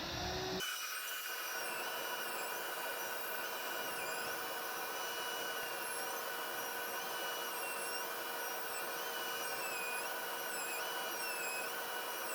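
Festool router running steadily in a slab flattening mill, cutting across a burr oak slab: a steady whine whose higher tones waver slightly as it cuts.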